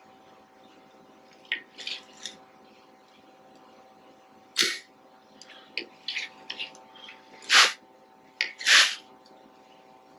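Hand tools clinking and scraping on metal machine parts in a string of short, sharp knocks, the two loudest near the end, over a steady electrical hum.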